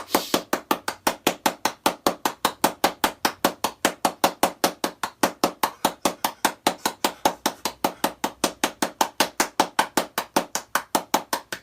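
A fast, perfectly even run of sharp taps or clicks, about five to six a second, keeping a steady pace.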